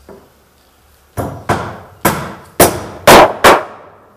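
Hammer driving a nail into a wooden boat plank: six quick, sharp blows about half a second apart, starting about a second in, each ringing briefly. The later blows are the loudest.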